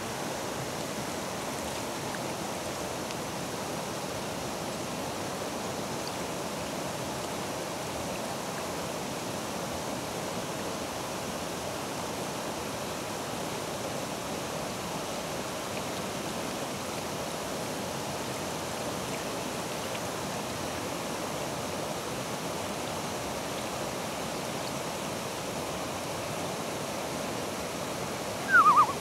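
Steady rush of a shallow river running fast over a rocky riffle. Right at the end a sudden loud, fast-pulsing sound breaks in, falling in pitch.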